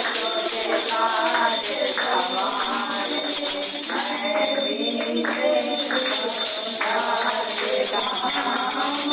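Hindu devotional aarti singing, with jingling hand percussion keeping a steady beat.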